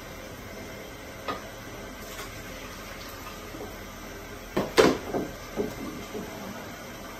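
A pestle knocking in a mortar: one light knock about a second in, then a burst of loud knocks about four and a half seconds in, trailing off into a few lighter ones, over a steady background hiss.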